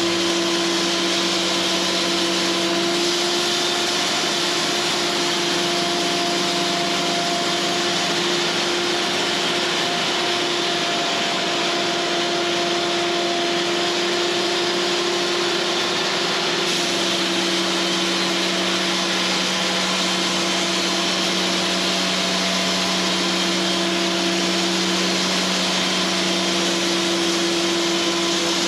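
Cooks AC36 band sawmill running steadily, its blade sawing through pine, with a constant machine hum under the noise of the cut.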